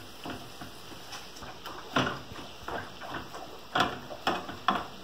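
Shaved steak sizzling in a frying pan while a spatula scrapes through it and knocks against the pan as the meat is pulled apart, giving a few irregular sharp taps.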